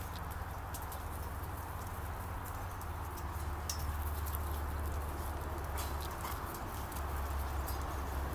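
German Shorthaired Pointer puppy tussling with a large stuffed teddy bear on grass: scattered light clicks and scuffles over a steady low rumble.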